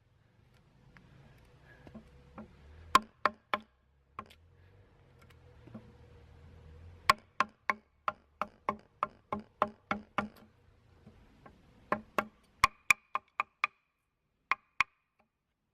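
Knife being batoned through wood to knock out a notch: a wooden baton striking the knife's spine in sharp knocks, a few at first, then a quick even run of about three a second, then scattered strikes, some of the later ones ringing briefly.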